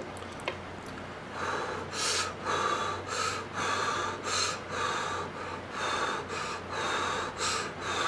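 A person slurping thin instant ramen noodles off chopsticks, starting about a second and a half in: a run of quick sucking pulls, about two a second.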